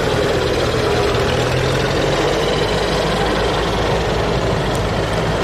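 Engine of a vintage flatbed truck running at low speed as it drives slowly past, mixed with other old engines idling nearby.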